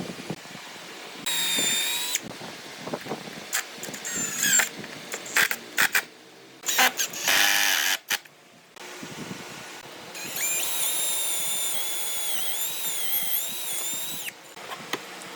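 A small electric power tool whining in two runs, a short one about a second in and a longer one of about four seconds near ten seconds in, with its pitch wavering under load. Scattered clicks and knocks fall between the runs.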